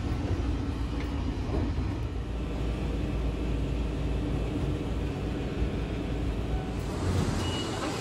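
Eizan Electric Railway train running, a steady low rumble heard from inside the carriage. Near the end the rumble drops away.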